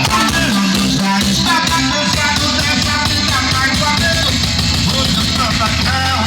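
Loud rock music with singing and a fast, steady drum beat, played through a Fiat Brava's car sound system.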